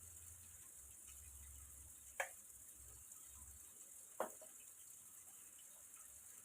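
Near silence: a faint steady hiss and low hum, with two light clicks, one about two seconds in and one about four seconds in.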